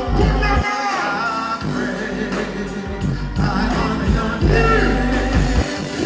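Live dancehall concert sound through a large PA: a male artist's voice over a backing track with heavy bass. The bass cuts out for about a second near the start, then comes back in.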